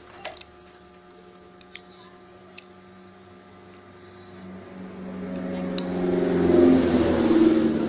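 A motor vehicle engine running close by, growing louder from about halfway through and loudest near the end as it passes. A couple of light hand claps sound just at the start.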